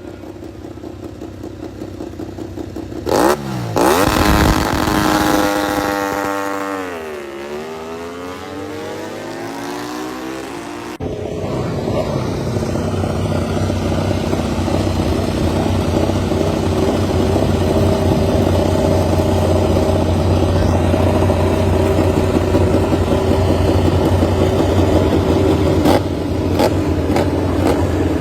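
MotoGP racing motorcycle engine revved up close. It jumps sharply about three seconds in, the revs sink and climb again, and then, after an abrupt change, it runs loud at a steady pitch.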